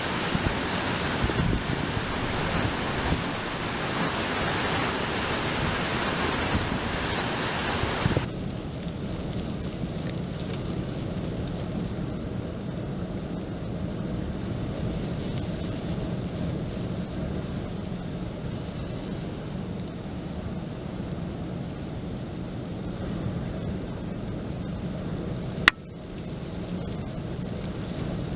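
Hurricane Ida's storm noise: a steady rush of wind and rain. The sound changes abruptly about eight seconds in, and again after a sharp click near the end.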